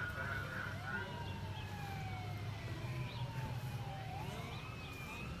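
Emergency vehicle siren wailing, a slow rise and long fall in pitch, then rising again near the end, over a steady low rumble.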